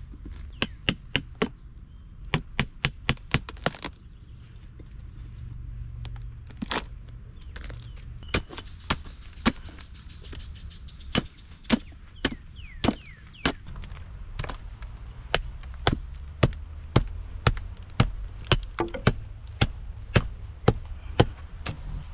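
Axe chopping wood on a stump chopping block: a long series of sharp blows, a quick flurry near the start, then spaced strikes, then a steady run of about two a second in the second half.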